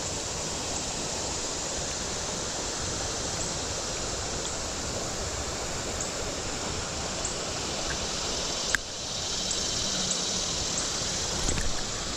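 Creek water running high after heavy rain, a steady rushing hiss, with one sharp click about two-thirds of the way through.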